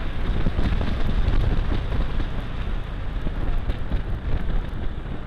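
Wind buffeting the camera microphone on a moving automatic scooter, mixed with the scooter's engine and road noise: a dense, steady rumble.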